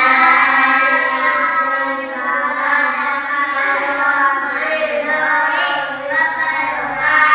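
Young children singing together in unison, in long held notes that shift slowly in pitch.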